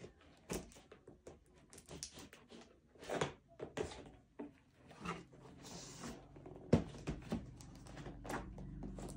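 A blade slitting packing tape on a cardboard box: scattered scrapes, short rasps and light clicks as the tape is cut and the box handled, with one sharp tap about seven seconds in.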